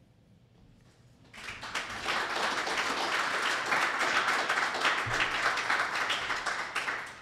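Audience applauding at the end of a talk. The clapping starts about a second and a half in, holds steady, and dies away near the end.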